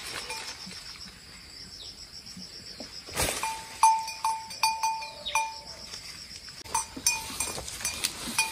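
A goat's neck bell clinking several times in quick succession as the goat moves, with a sharp knock just after three seconds. Insects chirp steadily and high-pitched throughout.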